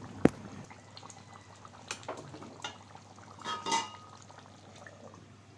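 Mutton curry simmering in a metal pot, a low steady bubbling hiss with scattered small pops. A sharp click comes just after the start, and a ringing metallic clink around three and a half seconds in.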